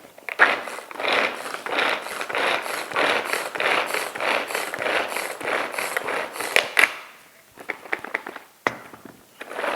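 Hand-operated mini food chopper working onion chunks, a rhythmic ratcheting whir of about two strokes a second as its blades chop the onion fine. It stops after about seven seconds, followed by a few light clicks.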